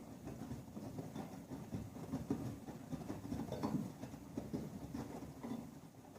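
Bosch Logixx WFW 3632 front-loading washing machine running a wash with a load of bedding: the drum turns with an uneven tumbling and knocking.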